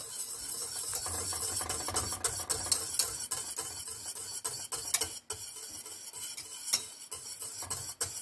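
Wire whisk stirring a milky white sauce in a stainless steel saucepan: a steady swishing with frequent light clicks of the wires against the pan.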